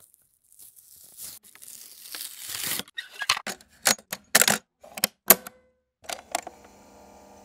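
Audio-cassette tape player being loaded and started. A rustling sound builds for about three seconds and cuts off, then a run of sharp plastic clicks as the cassette is handled and put in. Near the end the play key clunks down and the player's motor starts a low, steady hum as the tape runs.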